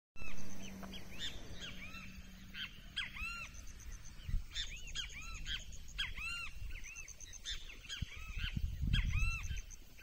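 Several wild birds singing and calling together in dry scrub: repeated arching whistled notes overlapping with quick runs of thin, high notes. A low rumble builds near the end.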